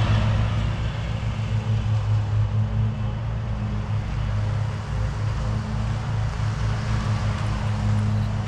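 Lawnmower engine running steadily: a continuous low hum that wavers slightly in level.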